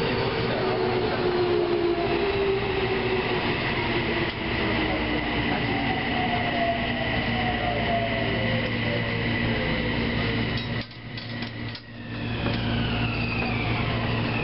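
Toei Mita Line subway train running, heard inside the car: a steady rumble under an electric motor whine whose tones fall in pitch as the train slows. The sound briefly drops away about eleven seconds in.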